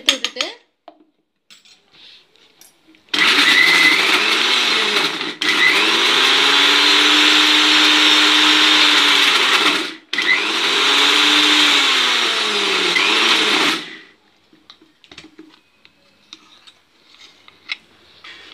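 Electric mixer grinder (mixie) grinding roasted peanuts to a paste in pulses. Its motor runs loud for about ten seconds in three bursts, with two brief breaks, and the whine rises as each burst starts and sinks as it stops. A metal spoon clinks and scrapes in the steel jar just before and after the grinding.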